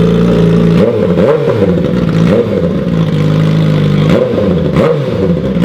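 A Suzuki GSX-R1000R's inline four-cylinder engine idling, just after start-up, and blipped up and down several times.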